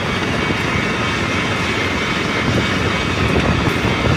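Passenger train passing close by at speed: a steady rush and rumble of wheels on rails and air along the cars.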